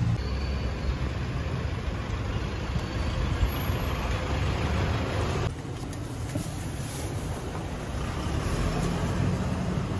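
Street traffic: a steady low rumble of idling and passing motor vehicles. The background changes and drops a little in level abruptly about halfway through.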